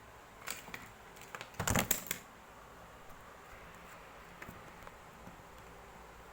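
Small hard objects being handled: a few sharp clicks, then a short, dense clatter about a second and a half in, and a few faint ticks afterwards.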